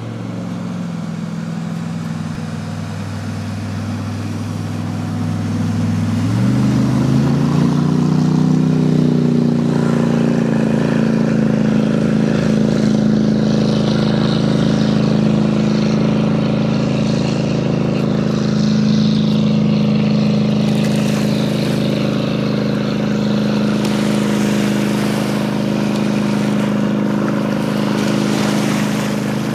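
Jet boat's engine running under way. It revs up about six seconds in, then holds at a steady higher pitch.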